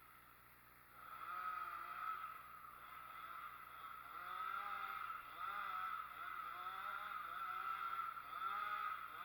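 An engine starts to be heard about a second in and keeps running, its pitch rising and falling again and again.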